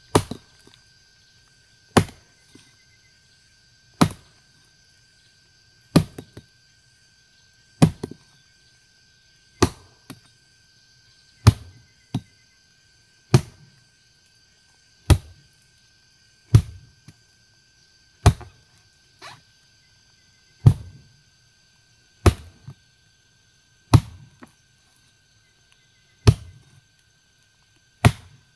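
A hand tool chopping at a steady pace, about one stroke every two seconds, each a sharp chop followed by a short thud.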